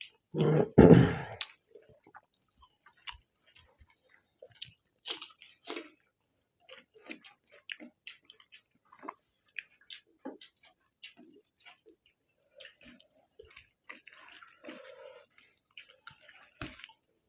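Close-up chewing and wet mouth sounds of people eating rice with egg curry: many short smacks and clicks at irregular intervals. About half a second in comes a single loud thump with a rustle, the loudest thing heard.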